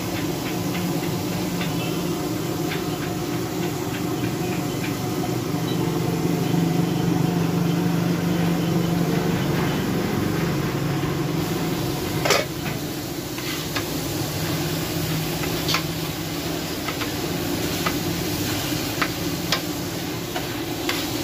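Food sizzling on a large flat iron tawa griddle, part of the time under a domed steel lid, over a steady low hum. Sharp knocks sound about 12 seconds in and a few more near the end, as a metal spatula works the food.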